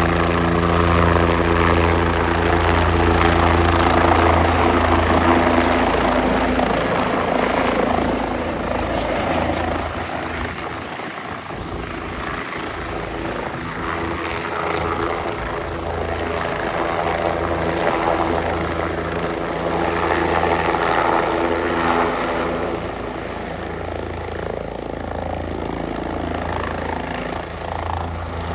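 Bell 407 helicopter arriving, its single turboshaft engine and four-blade main rotor running steadily with a low rotor beat under a turbine whine; loudest at first, easing about ten seconds in, then swelling again around twenty seconds.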